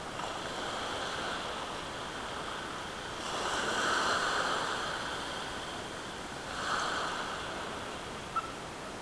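Sea waves breaking and washing at the shoreline, with a louder surge of surf about three seconds in and another near seven seconds. A single short click near the end.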